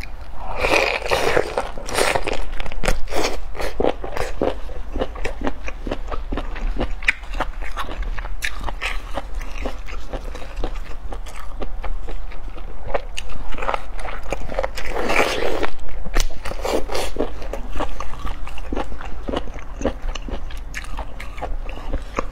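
Close-up eating sounds from a large piece of beef tripe coated in sesame paste: dense, crunchy bites and wet chewing throughout. Two longer, louder bites come about a second in and again about fifteen seconds in.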